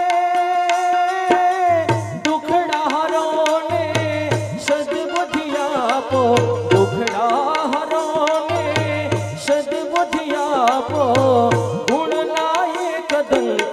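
Instrumental interlude of a Gujarati devotional dhun. A long held note gives way, about a second and a half in, to a wavering melody over hand-drum beats that come in short runs, with the clack of kartal throughout.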